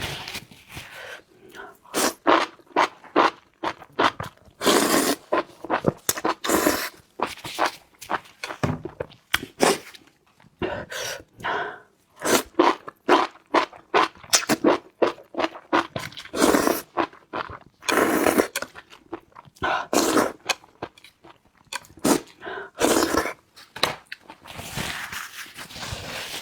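A person chewing and crunching food close to the microphone, with many irregular crunches and scrapes.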